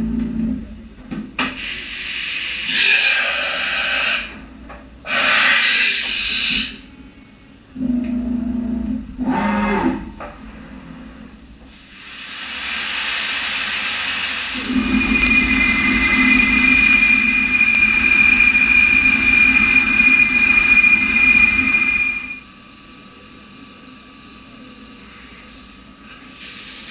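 Five-axis vertical machining centre at work, heard in several separate stretches. First come short bursts of hissing. Then a long steady hiss rises, a high steady whine joins it, and both cut off abruptly about 22 seconds in.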